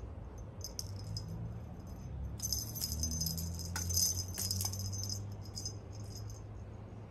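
Small bell on a cat toy jingling in quick shaken strokes, busiest for about three seconds in the middle.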